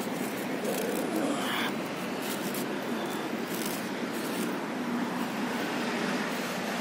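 Steady street traffic noise, an even hiss with no distinct engine or horn standing out.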